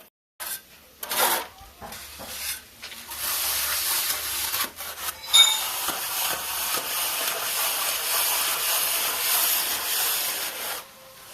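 A tool scraping against a rough surface, in a few short strokes at first, then steadily for several seconds, with a sharp click about five seconds in.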